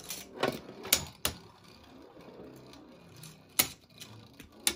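Judgment Joker and Glyph Dragon Beyblade Burst tops spinning in a plastic stadium, with a faint whir and sharp clacks as they collide. There are about six hits: several in the first second or so, then one loud one about three and a half seconds in and another near the end.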